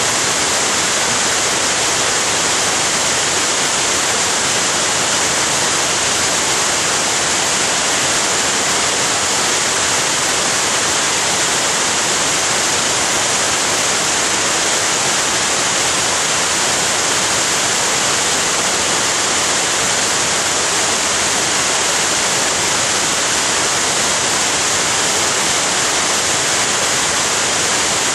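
Florence Falls waterfall rushing: a steady, unbroken hiss of falling water that does not change.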